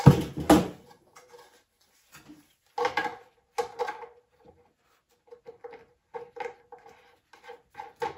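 Phosco P350 street lantern's plastic bowl and metal canopy knocked and clattered while being fitted together by hand: two loud knocks at the start, a burst of rattling about three seconds in, then a run of quick clicks and scrapes with a faint ring under them.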